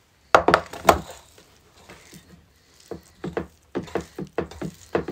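Metal thali plates set down on a glass tabletop: three sharp knocks in the first second. Then a run of quick, soft taps and scrapes as fingers mix rice and curry in the plates.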